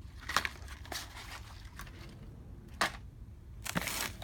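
Handling noise from firework packaging being moved: two sharp clicks, one shortly after the start and one before the end, with light rustling and a short burst of rustle near the end.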